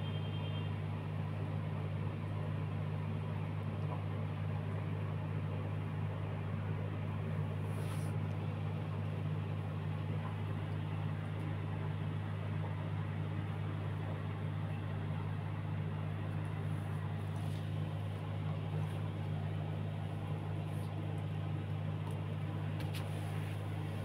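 Sewing machine stitching a quilt cover, giving a steady low hum with a few faint clicks.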